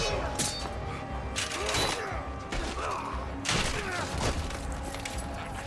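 Dramatic film score over a series of sharp hits and thuds, about five in a few seconds, with short vocal sounds between them, like the struck blows of a fight scene.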